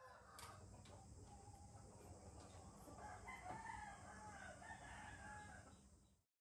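Faint steady hum with a few soft clicks, then about three seconds in a wavering, warbling animal call that lasts a few seconds.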